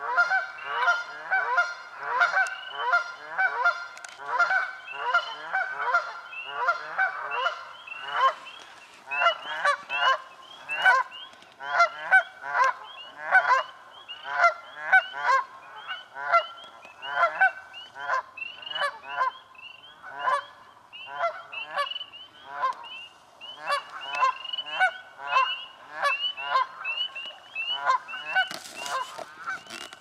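Canada geese honking over and over, several birds calling at once, their honks overlapping at about two a second and thickest in the first few seconds.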